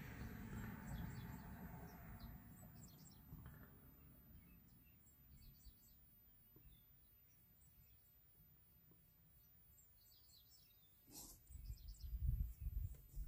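Faint, scattered bird chirps outside the car over a low background rumble that fades over the first few seconds. Near the end comes a short sniff and the rustle of a hand wiping the face.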